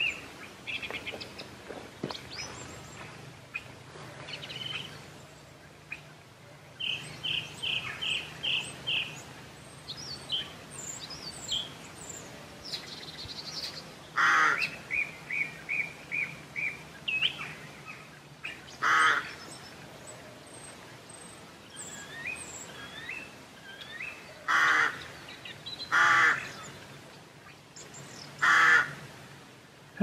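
Countryside birdsong: small songbirds twittering and giving quick runs of repeated chirps, with a crow cawing five times in the second half, its caws the loudest sounds.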